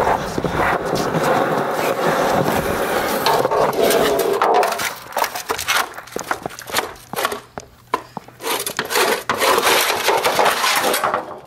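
Skateboarding on concrete: a long stretch of rolling and scraping, then a run of sharp clacks and knocks. Near the end comes a loud scrape of the board sliding along a concrete stair edge.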